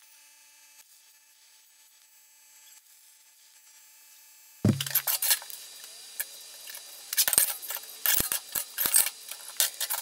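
A faint steady hum, then about halfway through a sudden clack as cut pieces of steel plate are put down on a workbench, followed by scattered metallic clinks and clatters as the plates are handled and shuffled against each other.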